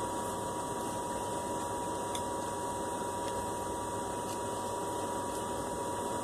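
Steady background hiss with a constant high-pitched hum, and a few faint clicks about a second apart.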